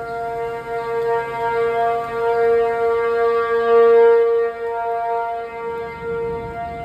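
P-50 outdoor warning siren sounding its steady alert tone. The pitch holds level while the loudness swells, peaks about four seconds in, then eases off.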